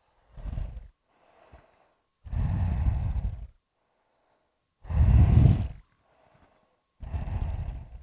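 A woman breathing deeply and audibly, four long breaths in and out about two seconds apart, the middle two the loudest.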